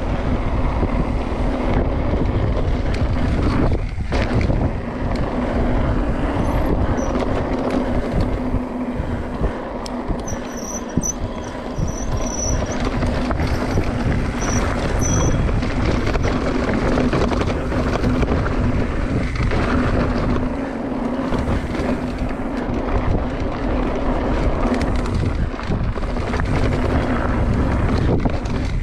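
Mountain bike riding over a dirt and gravel track: steady tyre and bike noise with occasional knocks, and wind on the camera's microphone.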